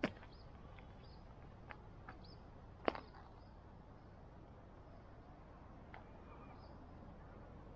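Quiet outdoor background with faint, short bird chirps scattered through it. Two sharp clicks stand out, the louder one about three seconds in.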